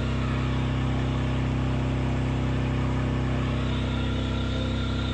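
Mahindra Jeeto BS6 diesel engine idling steadily.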